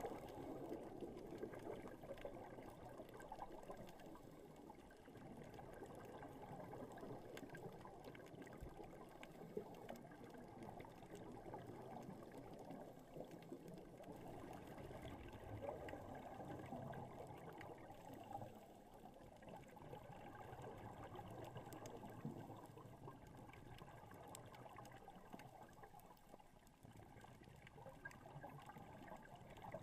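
Muffled underwater sound heard through a GoPro's waterproof housing: a low, uneven wash of water noise with faint scattered clicks.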